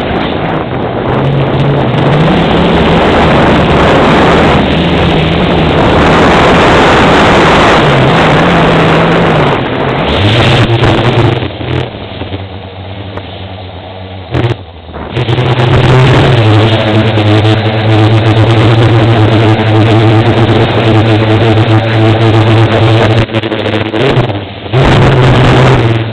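Quadcopter's electric motors and propellers running in flight, heard from the onboard camera: a buzzing hum that rises and falls with the throttle, under heavy wind rush on the microphone. About halfway through the hum drops lower and quieter for a few seconds, then comes back as a steady, stronger hum.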